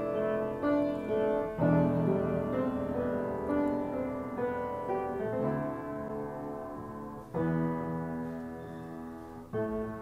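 Background piano music, chords struck about once a second and left to ring.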